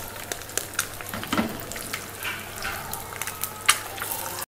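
Eggs being cracked into hot oil in a pan: sharp taps of shell on the pan's rim over a steady sizzle. The sound cuts off abruptly near the end.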